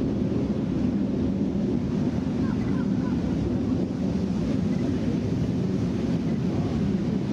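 Steady low rumble of wind buffeting the microphone, with no distinct events, while a bulk carrier rolls down the slipway on inflated rubber airbags.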